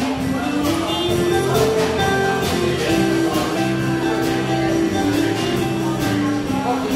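Live band playing a tune on electric guitars, bass guitar and drum kit: a held, stepping melody line over steady drum hits.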